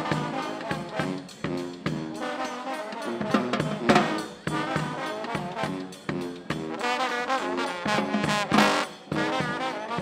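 Street brass band playing: trombones and trumpet carry the tune over a short repeating sousaphone bass line and a steady bass-drum beat.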